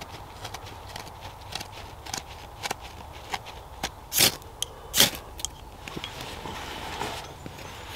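Ferro rod struck with a scraper into a tinder bundle of dry leaves and birch bark: two sharp scraping hisses about a second apart, the second sending sparks that light it. The tinder then catches with a soft rush and crackle, over small ticks and crackles from handling the dry tinder.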